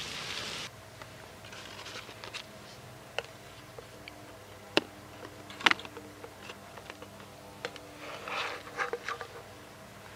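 Food frying in a skillet, a brief sizzle that cuts off less than a second in. Then a spatula and the pan handle give a few sharp taps and clicks, and a stretch of scraping near the end as eggs and hash browns are slid from the skillet onto a paper plate.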